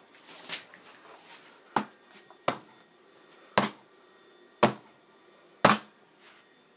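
Five sharp knocks, about a second apart, after a brief rustle near the start.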